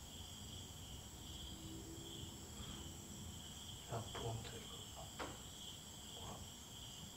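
Insects trilling faintly and steadily, with a few short sharp clicks and pops about four to five seconds in. These are the crackling "rap sounds" (ラップ音) that the ghost hunters take for paranormal knocking.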